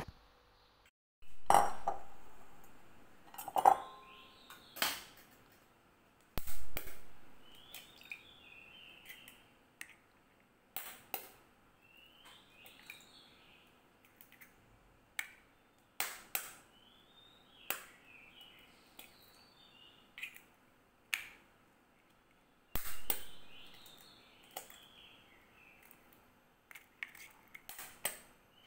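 Eggs knocked against the rim of a glass bowl and cracked open: a string of sharp knocks and glassy clinks every second or two, a few of them louder and ringing on.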